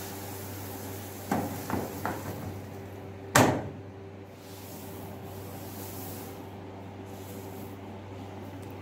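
A few short knocks, then one louder sharp thump about three and a half seconds in, over a steady low hum.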